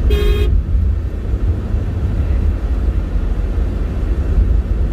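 Steady low rumble of road and engine noise inside a moving car's cabin. A short high tone sounds for about half a second at the very start.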